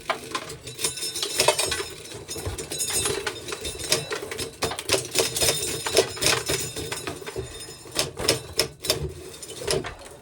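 Hand-cranked corn sheller being turned, with a rapid, uneven run of clicks and rattles as its mechanism and the corn clatter through.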